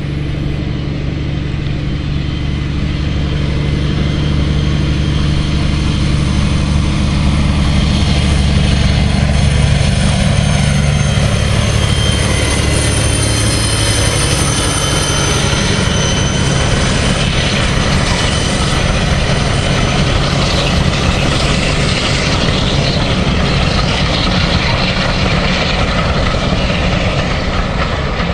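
Class 52 'Western' diesel-hydraulic locomotive D1062 Western Courier, its twin Maybach V12 engines working as it approaches and passes, loudest about ten seconds in, with a steady high whine over the deep engine note. About halfway through the engine note fades and the coaches it is hauling roll past on the rails.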